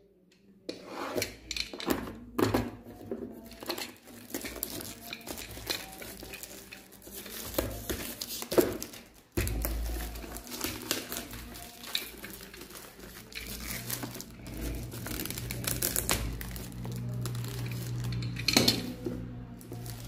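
Clear plastic shrink wrap being slit with a utility knife and peeled off a cardboard box, crinkling and tearing in irregular crackles.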